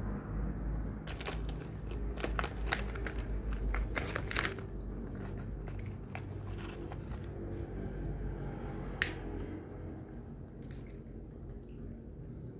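Plastic snack packet crinkling and crackling as it is handled, a dense run of sharp crackles in the first few seconds and a single sharp crackle later, over a low steady rumble.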